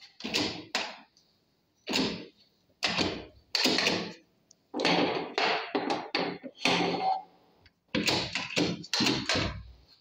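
A series of irregular thumps and knocks, about a dozen and a half, coming in loose clusters with short gaps between them, heard in a small room.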